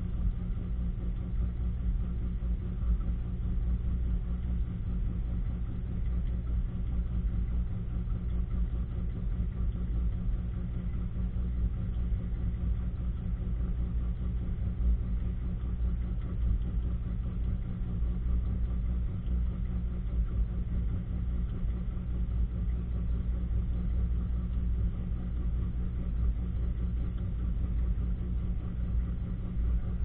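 Top-load washing machine running, heard from inside the tub: a steady low motor hum with no breaks or changes.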